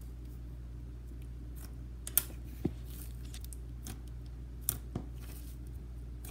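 A popsicle stick working and spreading butter slime: soft scraping with a few sharp sticky clicks, two of them about two seconds in and another pair near five seconds. A steady low hum runs underneath.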